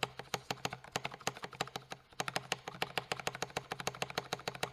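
8BitDo Retro Mechanical Keyboard being typed on quickly: a rapid stream of key clacks, with a brief pause about two seconds in.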